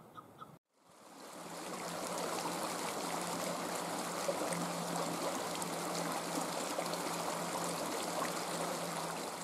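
Small forest creek running over rocks and fallen logs: a steady rush of flowing water that fades up over a second or so after a brief silence. In the first half second, a chukar partridge gives a few quick repeated calls, about four a second.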